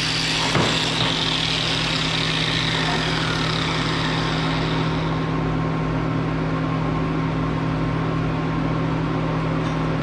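Steady machine hum, with a high hiss that fades away over the first few seconds and a single clank about half a second in.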